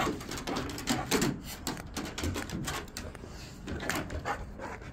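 Two dogs eating treats and moving about, making a run of quick, irregular clicks and taps.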